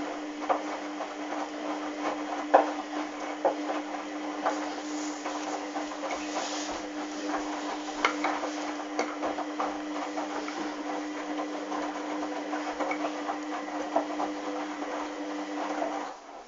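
Hoover washing machine running: a steady hum with irregular water splashing, clicking and knocking, all cutting off suddenly near the end.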